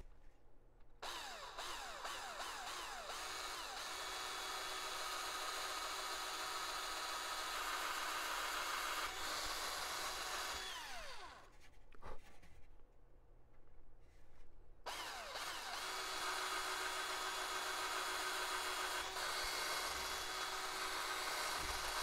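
Small cordless drill drilling pilot holes through a soft balsa wing leading edge. It runs in two steady stretches, about ten seconds and then about seven, with a pause of a few seconds between them.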